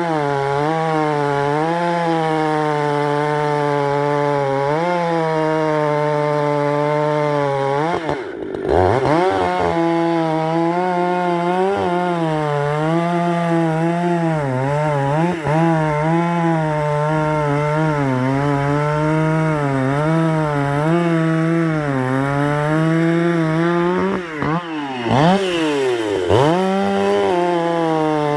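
Vintage Husqvarna two-stroke chainsaw running at high revs and cutting through a log, its pitch wavering as the chain loads up in the wood. The revs drop and come back up about eight seconds in and again near the end.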